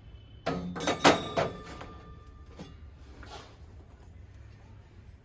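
Brass vessels knocking and clinking together in a quick run of strikes with a short metallic ring, followed by a couple of light taps. A steady low hum lies underneath.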